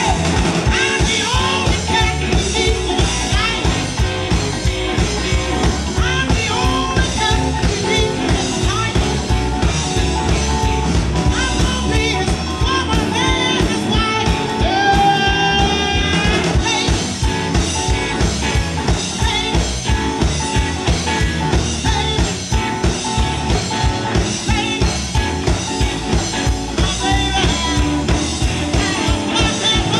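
Live electric blues band: a woman singing into a microphone over electric guitars and a drum kit keeping a steady beat.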